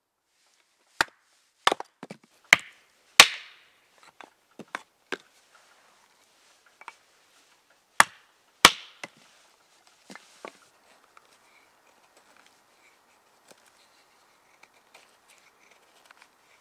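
Hatchet chopping small pieces of wood on a chopping block: four sharp strikes in the first few seconds, a few lighter taps, then two more strikes about eight seconds in. Near the end, faint scraping as a knife shaves curls off a stick.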